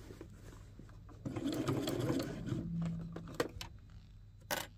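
Domestic sewing machine stitching in a short run that starts about a second in and stops shortly before the end. A sharp click follows near the end.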